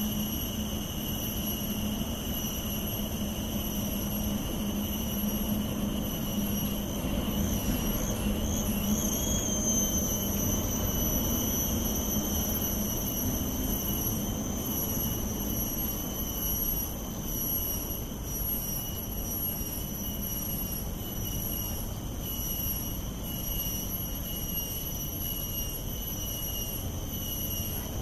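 Steady low rumble with a few thin, steady high-pitched tones over it.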